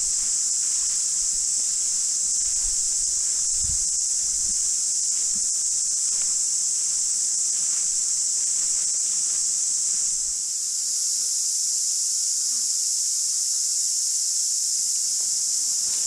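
Cicadas singing in chorus: a steady, high-pitched drone. Soft footsteps swish through long grass in the first several seconds.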